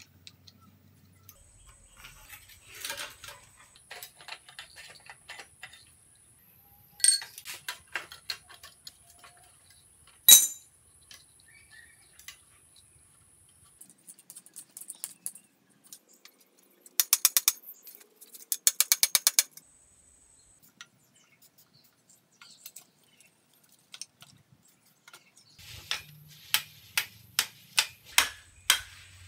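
Metal tools clinking and knocking against the rusted steel head tube and headset of a bicycle frame being dismantled, with two short runs of rapid metallic clicking midway. Near the end a hammer strikes the headset in a steady series of sharp blows, about three a second.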